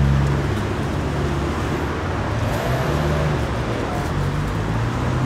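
Street traffic noise: a steady rumble of vehicles with a low engine hum underneath.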